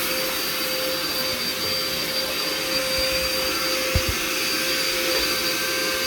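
Shark vacuum cleaner running steadily, its motor giving an even whine with a steady pitch. A couple of brief low knocks come about four seconds in.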